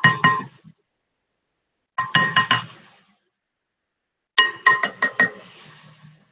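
Plastic wrap pulled off its roll in three short pulls. Each pull is a quick, rattling rasp with a steady pitch.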